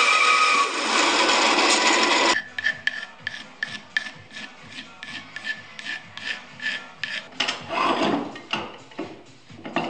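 Band saw running as it cuts through a blank of oak firewood, stopping abruptly about two seconds in. Then a marker scratches across the rough-sawn oak in quick repeated strokes, about four a second, with a louder rubbing scrape near the end as the blank is handled.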